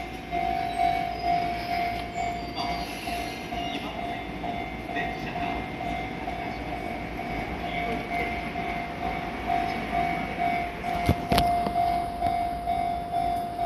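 Railway level-crossing alarm ringing, a fast repeating electronic ding at one pitch, over the low running noise of a Sotetsu 10000 series electric commuter train pulling slowly into the platform. Two sharp knocks sound about 11 seconds in.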